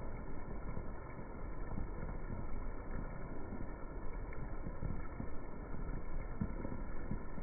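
Heavy rain falling and splashing on wet brick paving, slowed down with the slow-motion footage, so it is heard as a steady, dull low rush with no high end.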